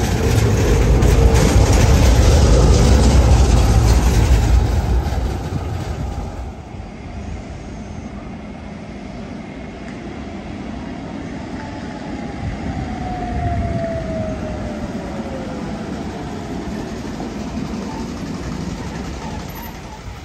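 A modern tram passes close by on street rails, with a loud low rumble that fades after about five seconds. A second, older tram then approaches along the same track, and its quieter rumble grows near the end. A falling whine is heard around the middle.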